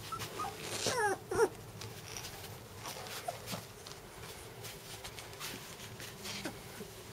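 Young golden retriever puppies whimpering: a couple of high, falling squeals about a second in, then a few short, faint squeaks.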